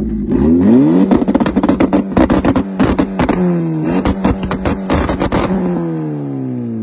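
Turbocharged Honda F20B engine in a mid-engine CRX revving hard, its pitch climbing and dropping several times, with a dense run of sharp cracks through the middle. Near the end the revs wind slowly down.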